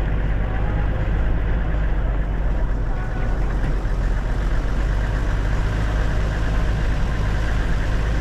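Game-drive vehicle's engine running steadily with a low, even hum.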